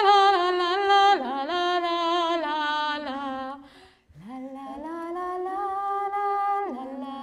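A woman singing a slow melody unaccompanied, in long held notes with a slight waver, in two phrases with a short break about four seconds in.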